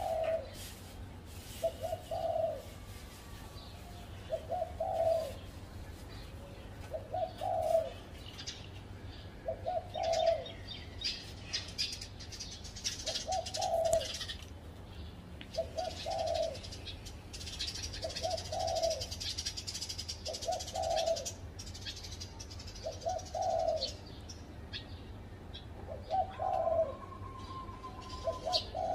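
Spotted dove cooing, repeating the same short phrase about once every two and a half seconds. Small birds chirp faintly in the background.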